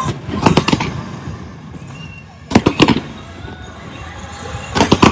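Aerial fireworks bursting close by: clusters of sharp bangs about half a second in, again at two and a half to three seconds, and near the end, over the show's music.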